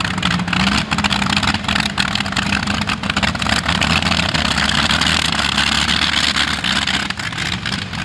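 Modified pulling tractor's engines running flat out under load during a pull, a loud steady drone holding one pitch, cut off suddenly at the end.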